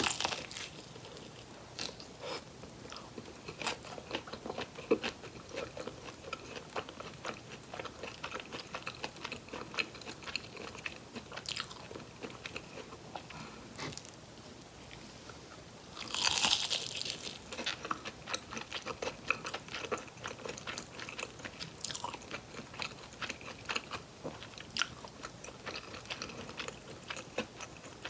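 Close-miked biting and chewing of crispy fried chicken drumsticks: a steady run of crisp crunches, with a big crunchy bite a little past the middle.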